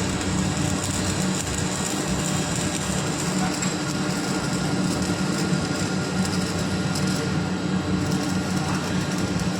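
Stick (arc) welding on a pipe: the arc gives a steady, even crackle over a low steady buzz.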